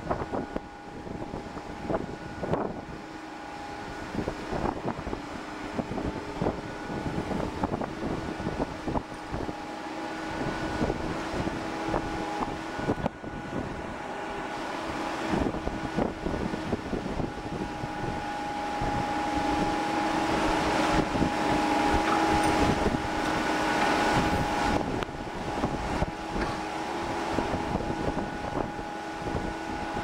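Steady machinery hum with a few held whining tones from the ship's crane, growing louder toward the middle, under wind buffeting the microphone.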